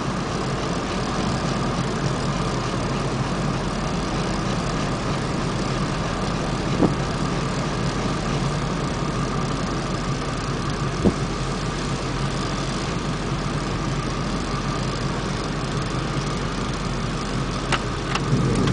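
Vehicle engine and road noise heard from inside the cab while driving slowly, a steady rumble, with two short knocks partway through.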